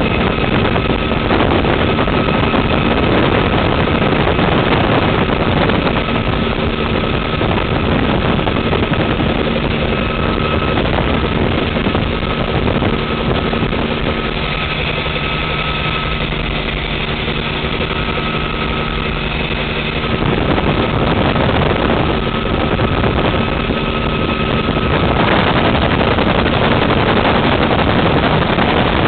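Bell 47 helicopter in flight, heard from inside its cabin: the piston engine and rotor run steadily, a constant drone with a few held tones over a dense rush of noise.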